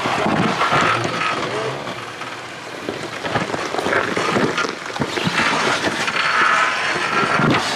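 Off-road vehicle crawling over a rocky trail obstacle, engine running under an irregular series of knocks and scrapes from tyres and stones.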